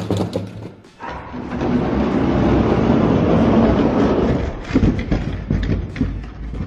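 Hot Wheels die-cast monster trucks rumbling down a plastic track, then a run of sharp knocks about five seconds in as they tumble against the clay blocks in the pit.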